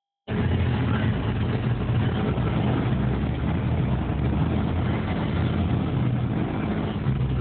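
Car engine and road noise while driving: a steady low rumble that starts suddenly just after the beginning and holds even throughout.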